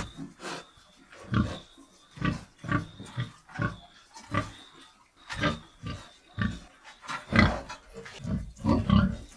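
An animal grunting repeatedly: short, low, separate grunts, about one or two a second at uneven intervals.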